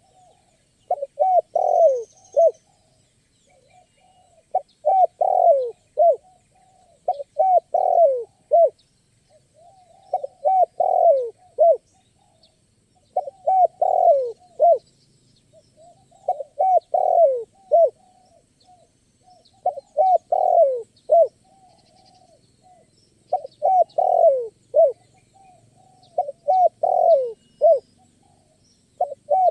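Spotted dove (tekukur) cooing: a phrase of several falling coos, repeated about every three seconds.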